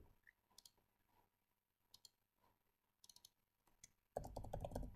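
Faint, scattered clicks of a computer keyboard and mouse, then a quick run of typing near the end.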